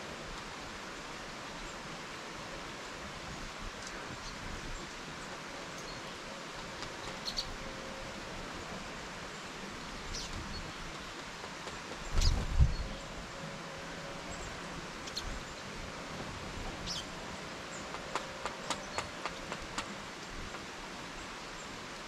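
Small birds giving scattered short, high call notes over a steady outdoor background hiss. About halfway through there is a loud low thump, and near the end a quick run of clicks.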